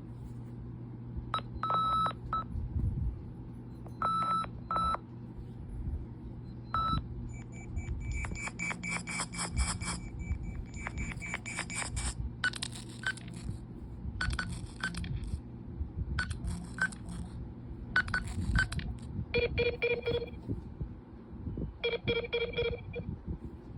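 Nothing Phone (1) ringtones from Nothing OS 1.5 playing one after another. First come a few sparse electronic beeps, then denser chiming patterns that repeat about every two seconds, and near the end a lower ringtone repeating three times, all over a steady low hum.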